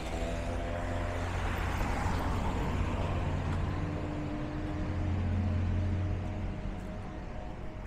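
Road traffic on a busy city street: motor vehicles passing close by over a steady engine drone, loudest around five to six seconds in.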